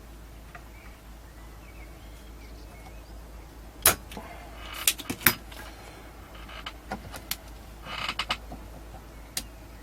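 Clicks, taps and a few sharp snaps of hand tools on an amplifier circuit board as an old capacitor is desoldered and pulled out. The loudest snaps come about four and five seconds in, with another cluster of clicks near the end, over a steady low hum.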